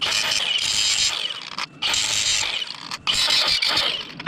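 Three harsh rasping, hissing bursts, each about a second long with short breaks between, from hand-tool work on a crankshaft repair sleeve fitted to a grooved Subaru crank.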